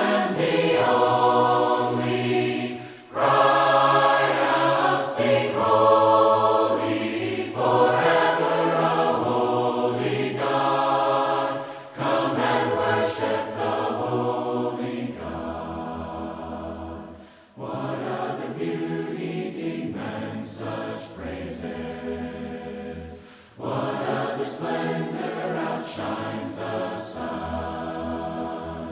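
A choir singing a worship song in harmony, in phrases of about four to six seconds with brief breaks between them.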